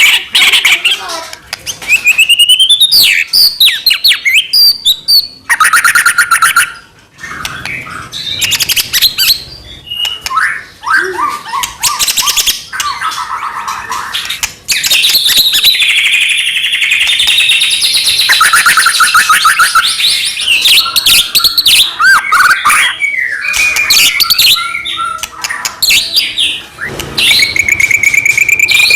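White-rumped shama (murai batu) singing loudly and almost without a break, a varied string of whistles, fast trills and rapid chattering phrases.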